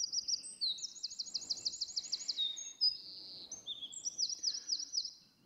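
Wren song played back over loudspeakers: a high-pitched run of rapid trills and fast repeated notes in several phrases, stopping abruptly near the end.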